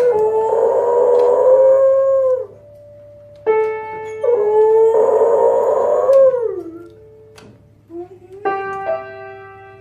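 A dog howling along to chords struck on a piano: two long howls that waver and fall away at the end, between chords that ring out and fade.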